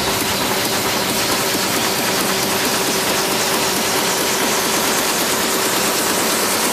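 Trance track in a breakdown: a steady wash of white noise with a held mid-range tone and no kick drum or bass.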